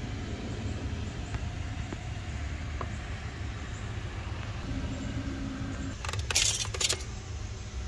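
Engine oil dipstick being pulled out of its tube, a short loud scraping rattle about six seconds in, over a steady low rumble.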